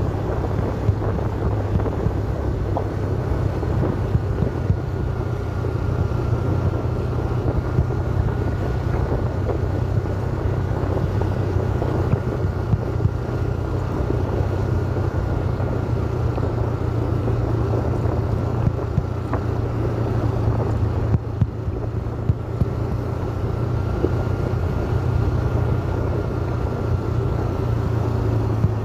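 A vehicle's engine running steadily at an even speed, with wind buffeting the microphone and scattered rattles and knocks over rough ground.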